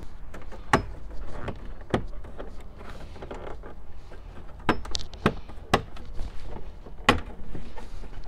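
Plastic retaining clips of a 2008 VW Jetta's lower dash trim bezel snapping loose as the panel is pried off by hand: a scattered series of sharp plastic clicks and knocks, about six loud ones, with the panel creaking between them.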